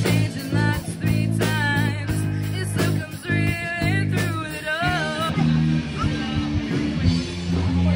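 Live rock band playing through outdoor PA speakers: a singer over electric guitars and drums. The singing drops out about five seconds in while the band plays on.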